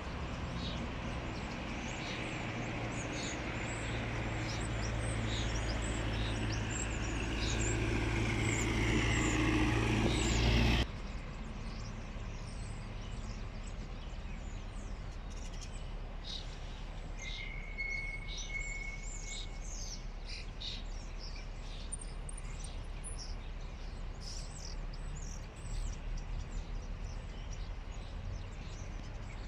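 Small birds chirping over and over against outdoor background noise. For the first ten seconds or so a low vehicle rumble builds up, then it cuts off abruptly.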